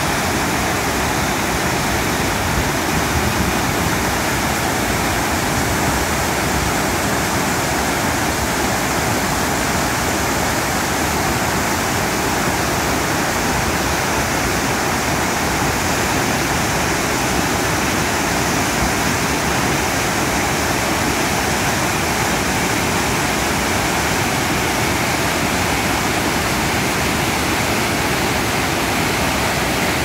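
Waterfall pouring: a steady, loud rush of falling water with no break or change.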